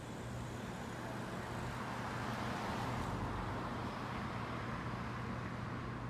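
City street traffic: a car passes close by, its tyre and engine noise swelling to a peak about halfway through and then fading, over a steady background traffic hum.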